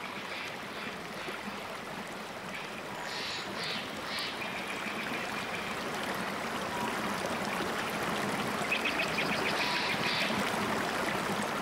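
Creek water rushing and babbling over rocks, a steady rushing that grows slowly louder, with short high chirps about three seconds in and again near the end.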